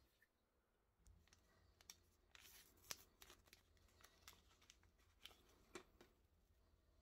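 A small lens-wipe packet being torn open by hand, then the wipe pulled out and unfolded: faint paper crinkling and tearing, with a quick cluster of sharp crackles about two to three seconds in.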